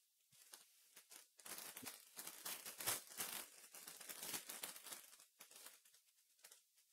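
Foil wrapper of a 2021 Panini Chronicles baseball card pack crinkling and tearing as it is pulled open by hand: a run of quick, faint crackles, busiest in the middle and thinning out near the end.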